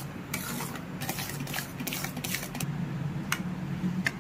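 Metal spatula scraping and clicking against a steel kadai of thick mawa-and-sugar mixture, in irregular strokes over a steady low hum.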